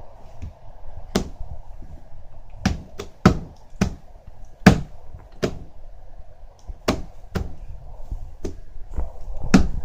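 A hand tapping and slapping on a table top, making about a dozen irregular thumps with uneven gaps, a few in quick runs.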